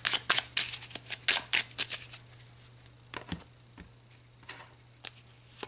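A deck of oracle cards being shuffled by hand: a quick run of crisp card flicks and slaps for about two seconds, then a few scattered taps and soft rustling.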